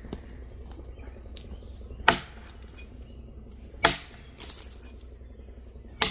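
An axe chopping into a fallen log: three sharp strikes, about two seconds apart.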